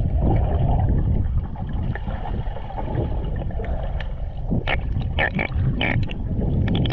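Muffled underwater rumble and gurgling of water against a submerged camera, with a few short bubbly bursts in the second half.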